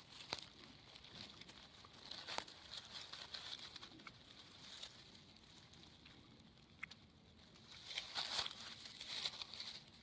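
Faint rustling and crackling of dry grass and fallen leaves as a hand grips an orange-cap boletus and pulls it up out of the ground, with a couple of sharp snaps in the first seconds and louder rustling near the end.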